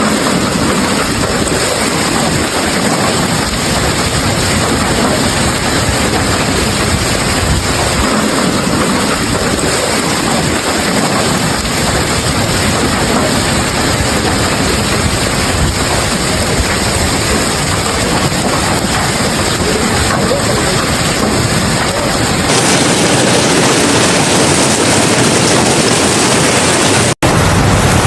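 Heavy rain pouring down in a severe thunderstorm, a loud, steady rushing. The sound shifts abruptly about 22 seconds in and drops out for a split second near the end.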